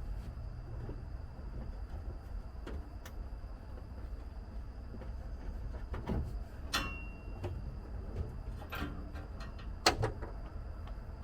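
Scattered light knocks, clicks and scrapes of hands working on a Humvee over a steady low rumble, with one sharper knock near the end.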